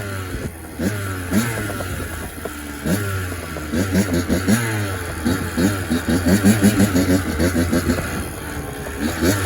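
Kawasaki KX85 two-stroke single-cylinder dirt bike engine being revved in quick, repeated bursts, its pitch climbing with each throttle blip, most busily in the middle stretch.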